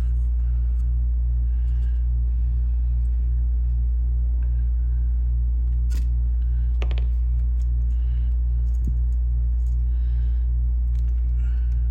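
Steady loud low electrical hum with a faint pulsing about three times a second, with a few small sharp clicks of tools and the circuit board being handled, the clearest about six and seven seconds in.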